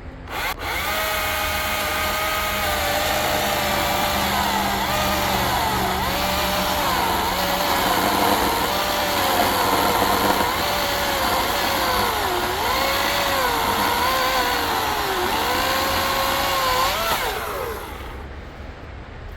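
Husqvarna 350i battery chainsaw in turbo mode, fitted with an Ego chain, cutting through an oak log. The motor and chain whine starts about half a second in and dips in pitch again and again as the chain is loaded in the cut. It winds down with a falling pitch near the end.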